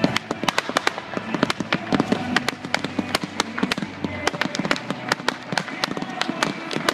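Daytime fireworks going off in a rapid, unbroken run of sharp bangs and cracks, several a second.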